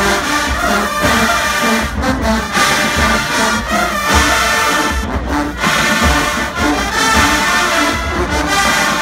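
College marching band playing loudly, with full brass (trombones and trumpets) carrying the tune over repeated low drum beats.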